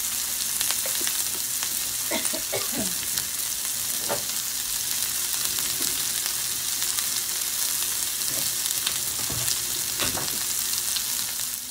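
Sliced beef hot links frying in oil in a cast iron skillet: a steady sizzle with scattered pops and crackles.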